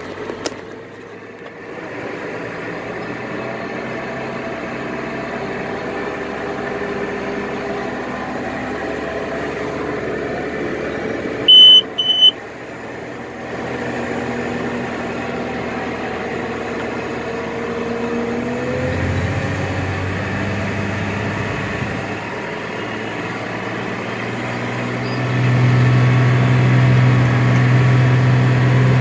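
Off-road dump truck's diesel engine running, heard from inside the cab, its note sliding up and down as the truck drives. About twelve seconds in come two short, sharp high beeps, the loudest sound. In the last few seconds the engine's low drone grows louder.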